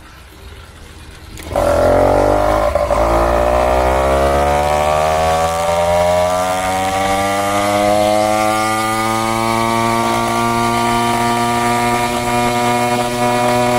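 80cc two-stroke engine on a motorized cruiser bicycle, fitted with a new aftermarket exhaust pipe, opening up abruptly about a second and a half in under hard acceleration. Its pitch climbs steadily for several seconds, then holds high as the bike reaches speed.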